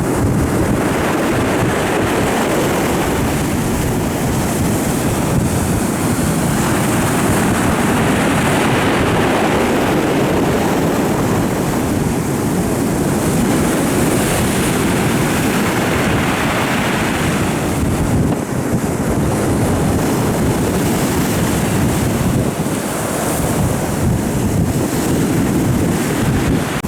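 Storm surf on the sea, waves breaking and washing in roughly every five to seven seconds over a continuous roar, with strong wind buffeting the microphone.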